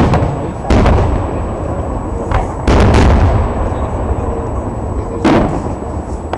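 Aerial firework shells bursting: a run of loud booms, four in all, spaced about one to two and a half seconds apart, each trailing into a low rumbling echo.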